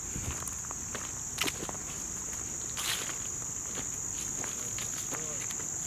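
A late-summer insect chorus droning steadily at a high pitch, with a few footsteps and small clicks scattered through it.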